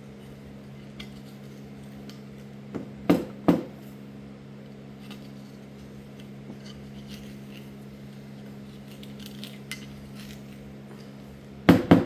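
Metal clinks and clanks of tools and distributor parts being handled during disassembly. There are a few sharp knocks about three seconds in and a cluster of louder clanks near the end, over a steady low hum.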